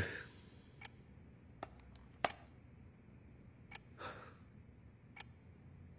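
Quiet room tone with a few faint scattered clicks, the sharpest about two seconds in, and a soft breathy sigh about four seconds in.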